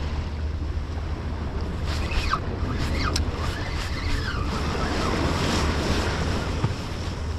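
Sea surf washing against a breakwater under steady wind buffeting the microphone, with a few faint, short high-pitched sounds that slide in pitch a couple of seconds in.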